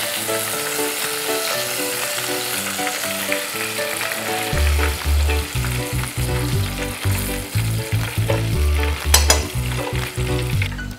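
Chicken pieces and Thai basil leaves deep-frying in hot oil on high heat, a steady sizzle, stirred with chopsticks and a wire skimmer and then lifted out. Background music with a bass line comes in about halfway.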